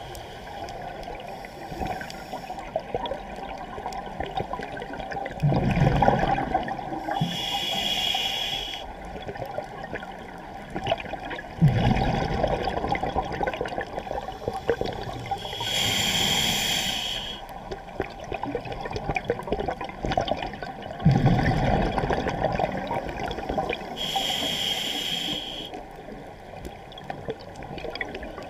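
Scuba diver breathing through a demand regulator underwater. There are about three breath cycles, each a short hiss of inhalation and, a few seconds later, a long low rush of exhaled bubbles.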